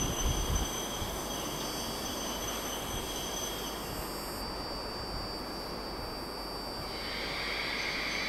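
Quiet ambience of a shinkansen platform with an E5 Series train standing at it: a steady hiss with thin, steady high whines. A low rumble dies away in the first second, and a higher rushing sound starts to build near the end.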